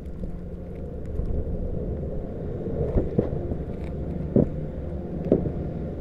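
Wind buffeting a body-worn camera's microphone, a steady low rumble, with three short knocks in the second half.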